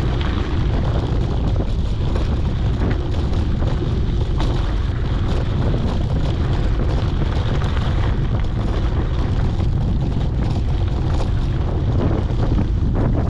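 Wind buffeting the microphone of a GoPro on a moving mountain bike, a steady low rumble, with the tyres rolling over a dirt road and small scattered clicks.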